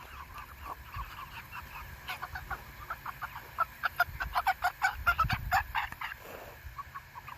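Chickens clucking, a run of short, quick calls that grows busier about halfway through.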